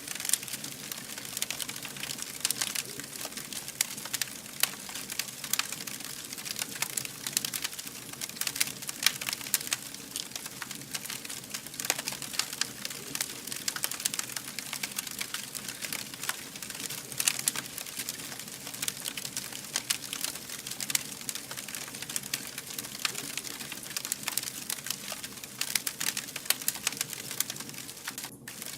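Wood fire burning, with dense irregular crackles and occasional louder pops over a steady hiss. The sound drops out for a moment near the end.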